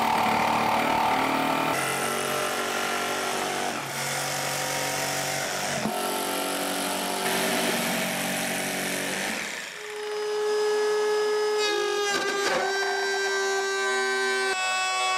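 Woodworking power tools cutting plywood in short edited bursts: a jigsaw sawing, then a trim router running with a steady whine from about ten seconds in.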